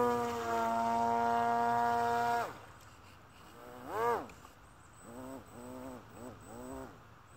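Motor and air propeller of a handmade RC fan boat running at a steady high pitch, then throttled off about two and a half seconds in, its pitch falling away. After that come a string of short throttle bursts, each a whine that rises and falls again.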